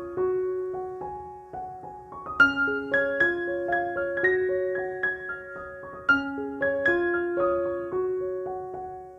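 Background piano music: a slow, gentle melody of single struck notes.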